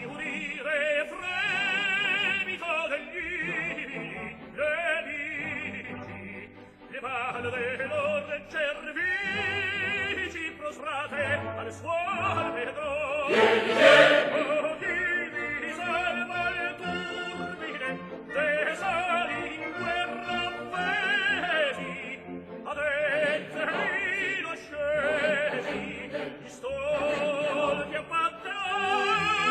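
Operatic tenor singing with a wide vibrato, accompanied by an orchestra, with a loud peak about halfway through.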